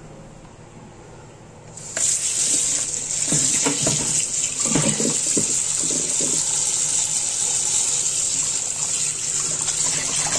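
Kitchen tap running into a plastic basin of boiled chicken wings in a steel sink, starting suddenly about two seconds in, with a hand swishing and rubbing the wings in the water to wash them.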